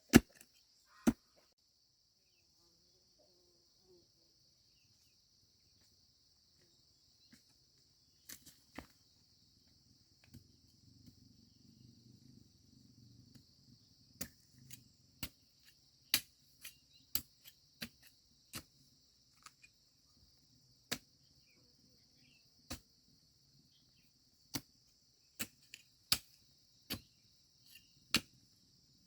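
Sharp, irregular knocks, several close together at times and then a second or more apart, over a steady high drone of insects.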